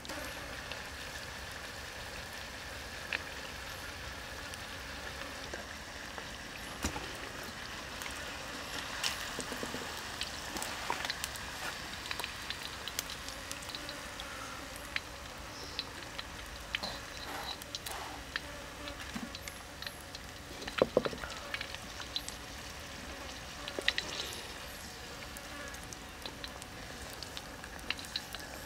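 Oil sizzling and crackling as pieces of water snake deep-fry in a wok, with a few sharp knocks, the loudest about two-thirds of the way through.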